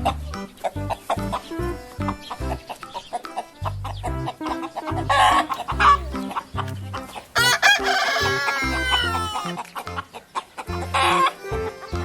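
A rooster crowing once, about two seconds long and falling in pitch at the end, with short chicken calls before and after it. Background music with a repeating bass line plays throughout.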